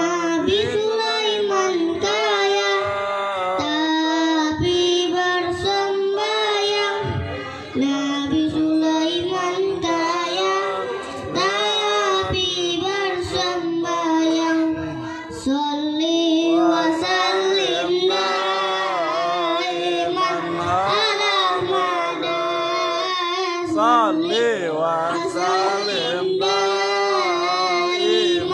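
A young boy singing into a handheld microphone, a melismatic devotional song with long held notes whose pitch wavers and curls, in long phrases broken by brief breaths.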